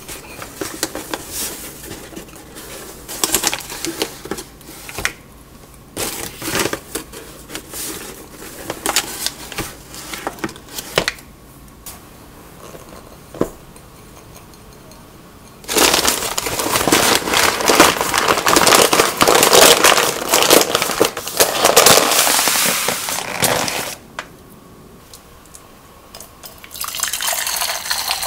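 A paper flour bag crinkling and rustling as a hand scoops inside it. Then whole wheat flour is poured into a plastic bowl with a steady rushing hiss lasting several seconds. Near the end, water is poured into a stainless steel cup.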